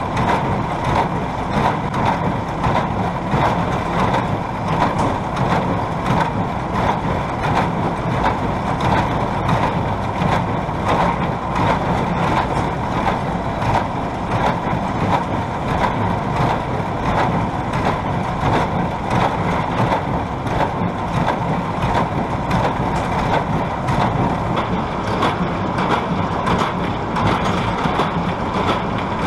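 Tractor and New Holland 570 small square baler running steadily while baling hay, the baler's plunger knocking over and over as it packs hay into bales.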